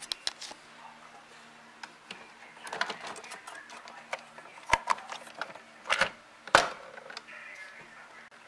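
Irregular plastic clicks and knocks of a K-cup coffee pod being handled and loaded into a Keurig 2.0 brewer, with three sharp clacks in the second half.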